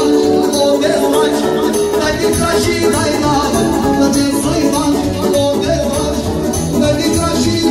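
Romanian hora dance music led by an accordion, over a steady driving beat.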